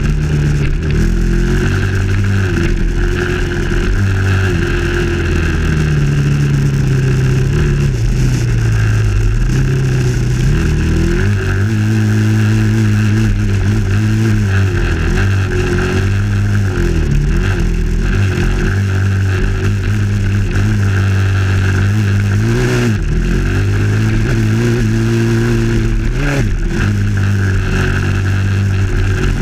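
Dirt bike engine running hard on a trail ride, its pitch rising and falling over and over as the throttle is opened and closed, with a few sharp dips where the revs drop.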